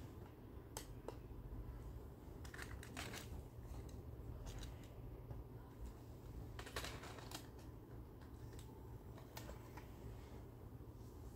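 Faint handling noise: scattered clicks and short rustles over a low steady hum.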